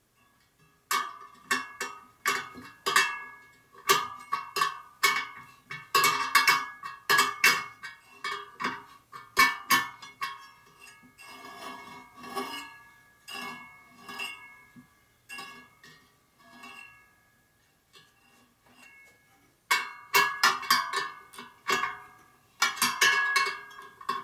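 Metal spokes of a laced motorcycle wheel struck one after another with a spoke wrench, each giving a short metallic ping. The ring of each spoke is used to judge its tension, picking out tight spokes from loose ones while the wheel is trued. After a couple of seconds of quiet, a quicker run of pings comes near the end.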